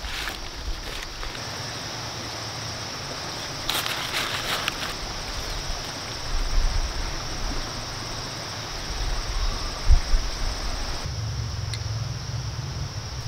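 Steady high-pitched insect drone over a faint background hiss, with a brief crinkle of a plastic bag being handled about four seconds in and a single knock near ten seconds.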